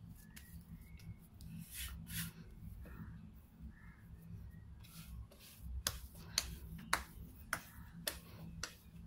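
Hands shaping a ball of kneaded bread dough on a wooden board: soft slaps and taps, a few at first and then coming more often, about one or two a second, over a steady low hum.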